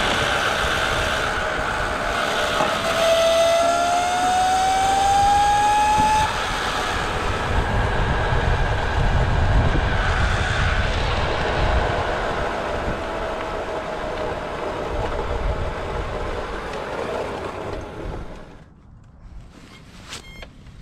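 Electric go-kart driven by two Castle 2028 800KV brushless motors, running under power: a high motor whine that rises in pitch from about three to six seconds in, over a rushing noise and low rumble. The sound falls away sharply near the end.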